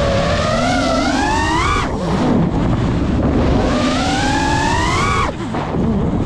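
GEPRC Mark 5 FPV quadcopter's motors and propellers whining, heard from the GoPro on board. The pitch climbs as the throttle is raised, then drops sharply as it is cut, about two seconds in and again about five seconds in. A steady rushing noise runs underneath.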